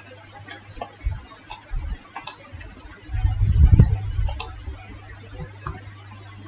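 Scattered computer mouse and keyboard clicks, irregular, a few per second, as text is typed in. A low rumbling noise swells about three seconds in and fades by four and a half, over a steady low hum.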